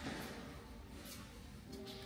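Faint shop ambience: quiet background music over a low steady hum, with a few soft ticks.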